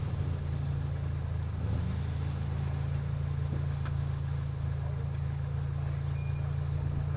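Toyota Celica's 1.8-litre four-cylinder engine running at a steady idle, heard from inside the cabin as a low, even hum.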